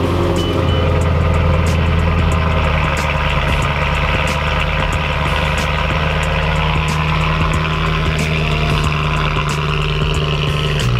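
BMW E90 M3's 4.0-litre V8 idling steadily through an iPE aftermarket exhaust, with a slight rise in pitch near the end.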